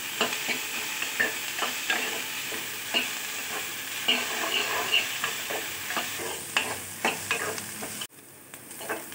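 A metal ladle scraping and clinking against a metal kadai as chopped onions, green chillies and curry leaves are stirred and sautéed in sizzling oil. It cuts off abruptly about a second before the end.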